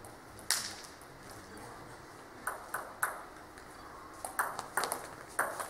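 Table tennis ball clicking off the Cornilleau table and the players' rackets. A single click comes first, then from about halfway a quick back-and-forth run of clicks as a rally gets going.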